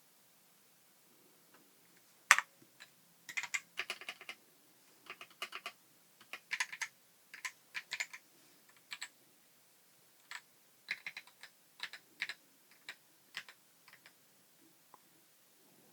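Typing on an Ajazz AK820 mechanical keyboard with red linear switches: irregular runs of keystroke clacks with short pauses. The switches are lubed, and the keystrokes sound soft and even.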